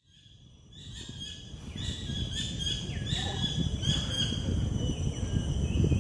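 A wetland ambience fades in. Birds chirp repeatedly in short calls over a steady high-pitched insect drone and a low rumble.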